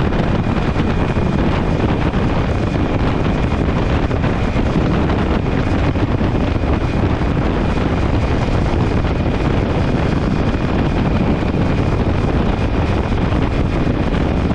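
Strong wind blasting across the microphone: a steady, dense rush of noise with no let-up.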